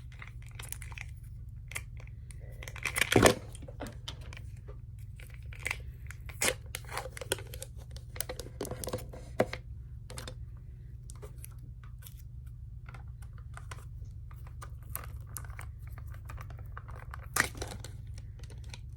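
Paper and plastic takeout food packaging being handled: rustling, crinkling and tearing with scattered clicks, loudest in a burst about three seconds in, over a steady low hum.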